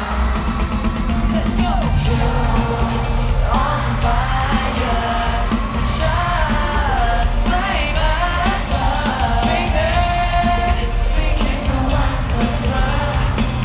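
Live pop music played over a concert PA, a sung melody over a steady beat and bass, with yells from the crowd.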